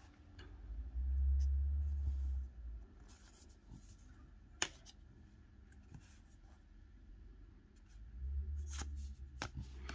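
Tarot cards being handled and shifted in the hand: faint papery rustles and one sharp click about halfway through. A low dull rumble of handling sounds about a second in and again near the end.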